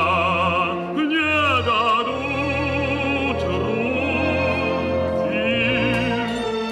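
Operatic baritone singing over an orchestra, drawing out long held notes with a wide vibrato.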